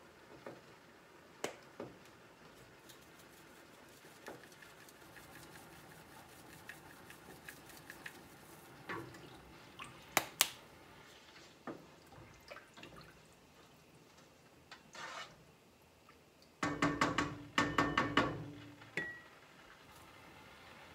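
Seasoning containers handled and shaken over a stainless steel stock pot of broth, with a spoon stirring and tapping in the pot: scattered small clicks and taps. About seventeen seconds in, a loud run of rapid clanks with a metallic ring lasts nearly two seconds.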